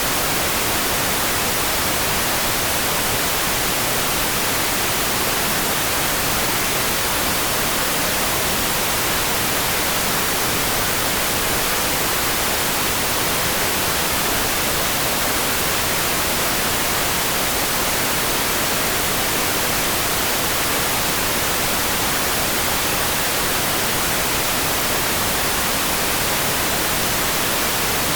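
Steady sleep-track rain: an even, unchanging hiss with no separate drops, thunder or other events.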